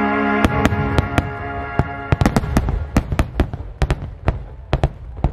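Aerial firework shells bursting in a rapid barrage: sharp bangs several times a second, with a low rumble between them. Music plays for the first half second and stops as the bangs begin.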